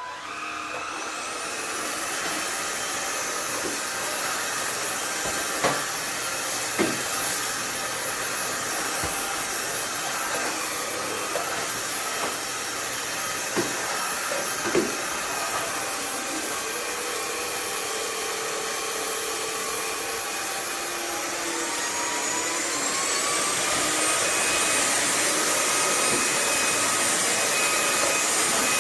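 Cordless stick vacuum cleaner running steadily with a high whine, with a few sharp ticks in the first half. About three quarters of the way through, the motor's pitch rises and it gets louder as it speeds up.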